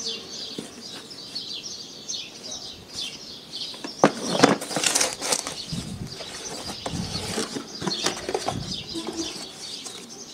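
Cardboard product box being handled and opened: a knock about four seconds in as it is set down, then rustling of the lid flap and packing inserts. Small birds chirp in the background.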